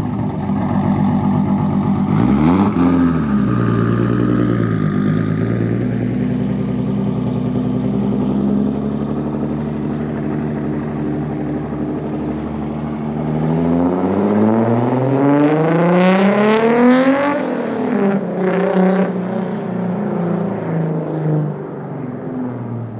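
Toyota MK4 Supra's straight-six engine on a loud exhaust. It blips up and back down once, runs steadily, then revs up for several seconds past the middle and drops off sharply, followed by one more short blip before it settles and fades near the end.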